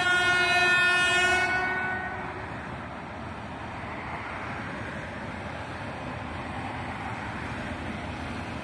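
3ES5K 'Ermak' electric locomotive sounding its horn in one long blast that fades out about two seconds in. The rumble of the approaching freight train follows, rising slowly.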